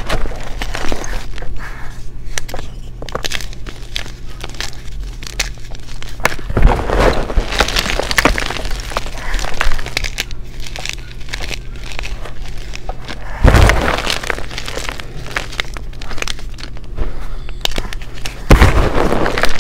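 Blocks of gym chalk crunching and crackling as gloved hands squeeze and crush them into powder, with dense small cracks throughout and three heavier crunches, about a third of the way in, two-thirds in, and near the end.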